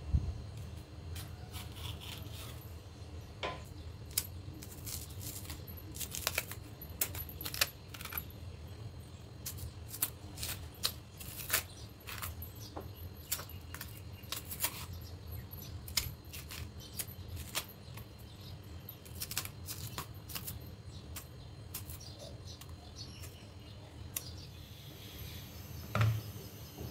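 Kitchen knife peeling the green skin off raw Nendran bananas: irregular small clicks and scrapes as the blade cuts and lifts strips of peel. Near the end there is a dull knock as a peeled banana is set down on a plate.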